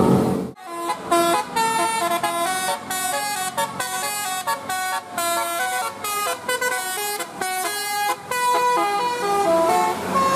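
A multi-tone vehicle horn playing a quick tune of short, separate notes that jump up and down in pitch.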